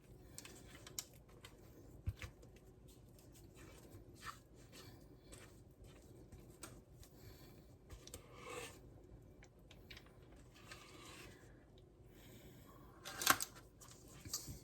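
Faint scraping and light knocks of a spatula and mixing bowl as thick brownie batter is poured and scraped into a baking pan, with one louder knock near the end.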